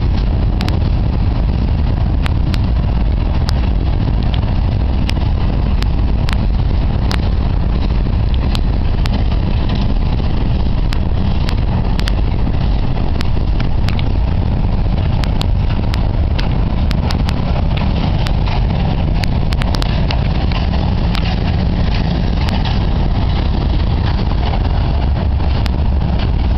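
Freight train cars rolling past close by: a loud, steady rumble of steel wheels on the rails, with frequent sharp clicks.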